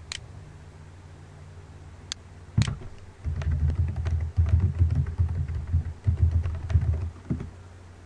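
Typing on a computer keyboard: a few single clicks in the first three seconds, then a quick run of keystrokes from about three to seven seconds in, with a heavy thud on each key.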